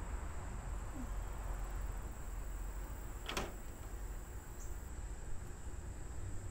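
Outdoor background noise: a steady low rumble with a constant thin high-pitched tone over it, and one short sharp sound a little over three seconds in.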